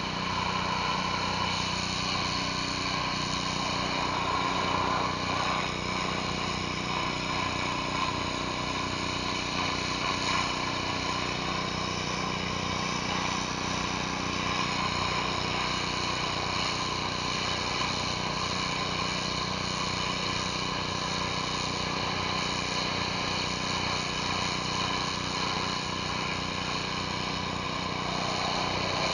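Gas-engine pressure washer running steadily at constant speed, with the hiss of high-pressure water spray from a surface cleaner on concrete.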